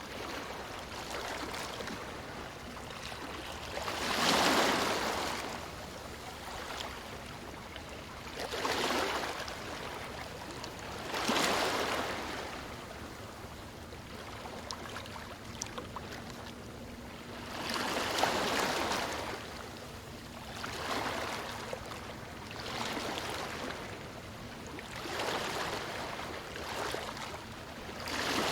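Small waves washing onto a shore: a steady water hiss swelling into a louder surge every few seconds, each one rising and then falling away.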